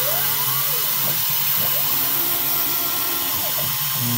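DIY CNC router milling holes in 6082-T6 aluminium plate with a 4 mm two-flute end mill, its spindle running at about 11,000 RPM, over a steady hiss from the air blast clearing chips. Short whines rise and fall in pitch again and again.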